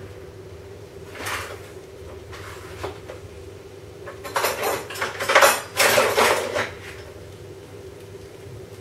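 Kitchen clatter of dishes and utensils knocking: a couple of brief bouts, then a louder run about four to seven seconds in, over a steady faint hum.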